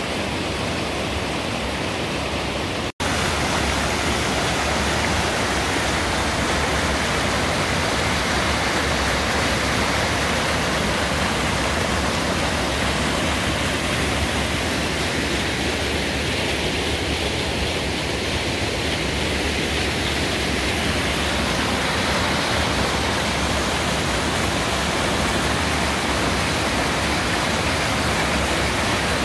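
Stream water rushing and splashing down small cascades over rock slabs: a steady, even rush. It cuts out for an instant about three seconds in, then goes on slightly louder.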